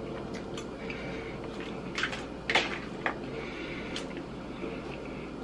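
A metal fork clicking lightly against a dish of salad a few times while someone eats, over a steady low room hum.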